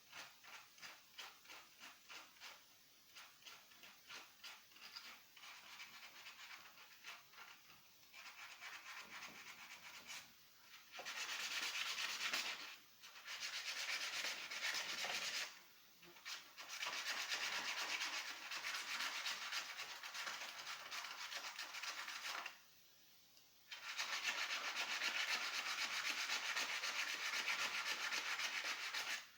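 Abrasive rubbing on an old tool being restored, as in sanding off rust or old finish. It starts as even back-and-forth strokes about twice a second, then from about eight seconds in becomes louder and steadier, broken by a few short pauses.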